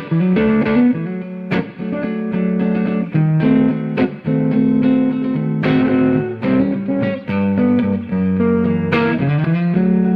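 Electric guitar playing a blues lick: a run of single picked notes, with a note bent upward about nine seconds in.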